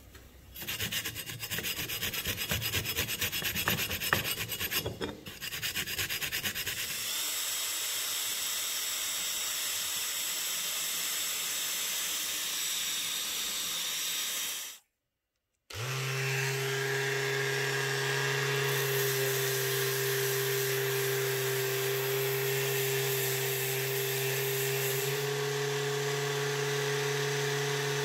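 A green abrasive pad scrubbed back and forth over the rusty cast-iron hand-plane parts, then a cordless drill spinning a wire brush against a steel plane part to strip rust, with a steady whir. After a brief break, a Ryobi ONE+ 18V orbital sander runs with a steady motor hum.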